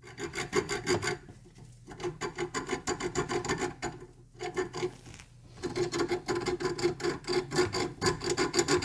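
Steel thread file (metric 1.0 mm pitch, from a thread chaser kit) rasped rapidly back and forth over the threads of a steel flare nut, in runs of quick strokes with brief pauses. It is re-cutting threads that were flattened by over-aggressive wire-brushing.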